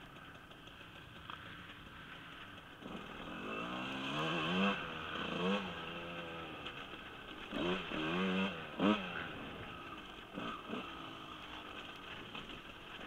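Husqvarna 125 dirt bike engine heard close up from the rider's helmet, running low for the first few seconds, then revving up and down in short bursts several times as the bike climbs and turns along the trail.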